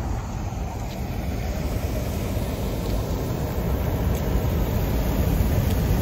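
Steady low roar of heavy ocean surf, with wind rumbling on the microphone, growing slowly louder.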